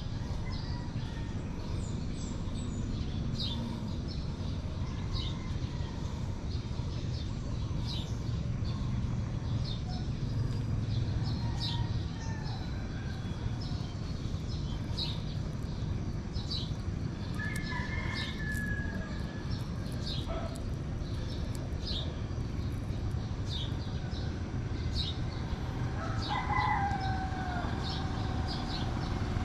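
Roosters crowing twice, once mid-way and once near the end, over a steady low rumble. Short high chirps repeat about once a second.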